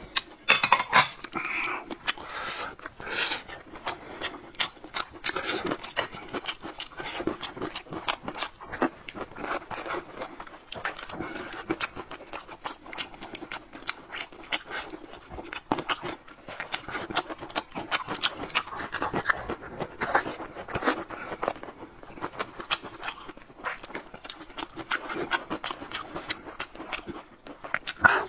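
Close-miked eating sounds: chewing and wet lip-smacking, a dense run of small clicks.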